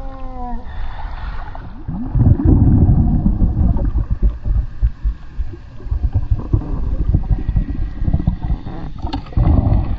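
Muffled underwater noise as the camera goes under the sea: a low rushing rumble with crackling and bubbling, loud from about two seconds in and swelling again near the end.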